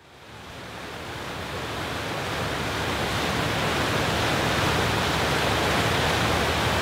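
Steady rushing of water churned up by a motorboat under way, fading in over the first few seconds.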